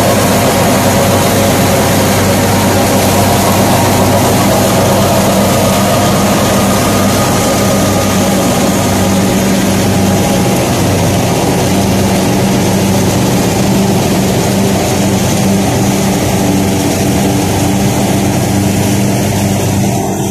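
Tractor and tractor-driven Shakeel straw reaper running steadily under load, cutting and chopping wheat straw and blowing it into a trolley: a loud, even drone with a wide rushing noise over it.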